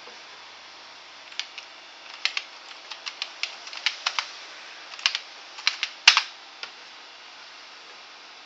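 Typing on the Amiga 500's built-in keyboard: a run of irregular key clicks lasting about five seconds, with one heavier keystroke about six seconds in.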